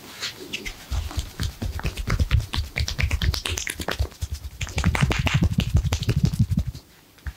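Fast, continuous hand taps and slaps of a percussive massage on the body, with dull low thuds under sharp skin slaps. They start about a second in and stop abruptly near the end.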